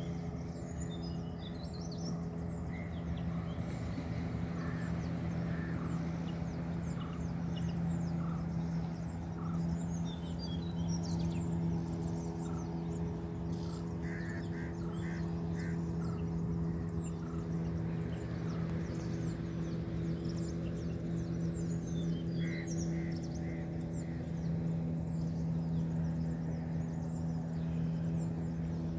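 Many birds calling, with short high chirps and repeated calls throughout. A steady low hum runs underneath.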